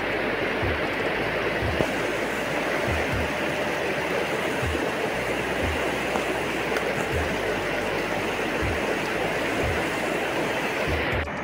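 Mountain river rushing steadily over rocks and small rapids, with occasional low thumps. The sound drops suddenly right at the end.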